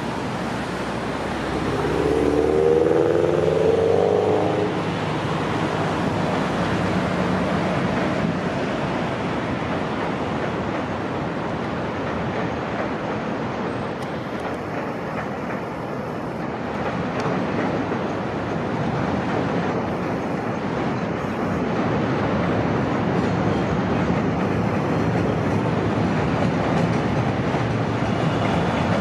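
CTA 7000 Series rail car running. About two seconds in, a whine made of several stacked pitches rises as the electric propulsion motors accelerate the train. After that comes a steady running noise of wheels on track.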